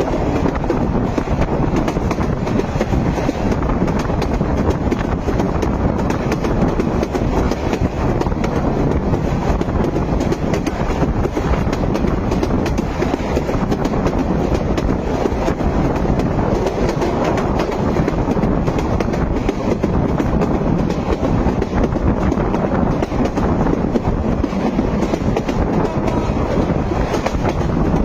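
A train running along the track: a steady, loud rumble with the continual clatter of wheels on the rails.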